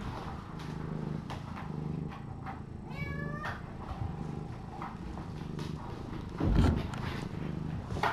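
A kitten meows once, a short high call about three seconds in, over a faint low hum. A soft low thump follows about six and a half seconds in.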